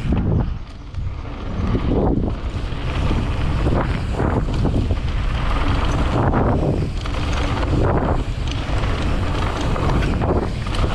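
Wind buffeting the microphone of a camera riding fast down a dirt mountain-bike trail, a loud rumbling rush that surges every couple of seconds, mixed with the rumble of tyres rolling over dirt.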